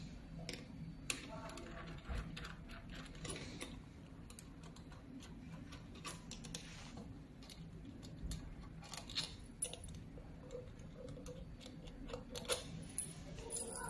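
Scattered small clicks and clinks of metal and plastic parts being handled on a laser welder's lamp housing, over a steady low hum.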